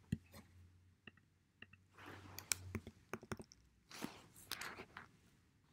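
Faint scattered clicks of a computer mouse or trackpad while the event's time is being set, with two short soft rustling noises about two and four seconds in.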